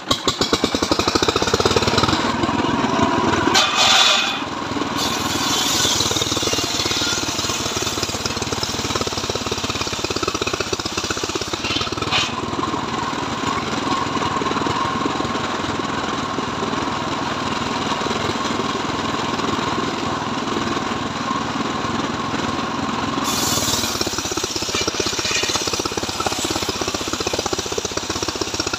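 Homemade circular sawmill running loud and steady as its blade rips lengthwise through a mahogany log.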